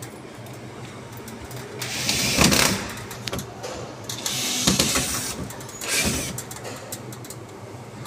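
Cordless drill-driver driving screws into a door closer's mounting bracket in short bursts, about three times, the loudest near the middle.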